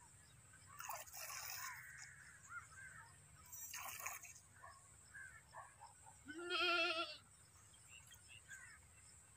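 A goat bleats once, a wavering call about a second long some six seconds in, with a few short faint noises around it.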